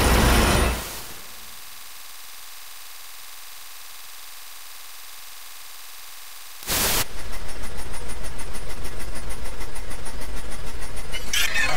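Electronic noise soundtrack. A dense noise wall cuts to a quieter steady high hiss about a second in. A little past halfway, a sudden loud burst gives way to loud noise with a fast, even pulsing.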